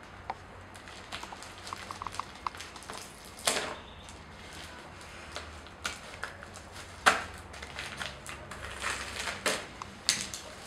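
Scissors snipping through a padded plastic mailer, with the plastic crinkling and crackling as it is cut and pulled open: irregular sharp clicks and short rustles, one louder snap about 7 seconds in.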